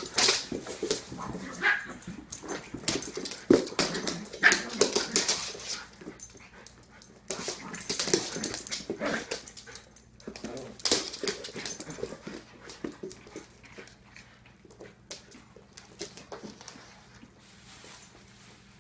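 A large poodle and a puppy playing rough: scuffling and paws on a wood floor in irregular bursts, with a few brief dog whimpers. The activity dies down over the last several seconds.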